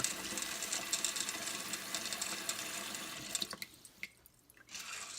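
Tap water running into a pot of dry beans, stopping about three and a half seconds in, followed by a few drips.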